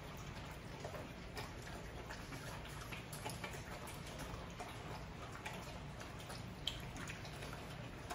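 XL pit bull puppies eating together from one bowl: faint, irregular clicks and smacks of chewing and lapping, one slightly sharper click near the end.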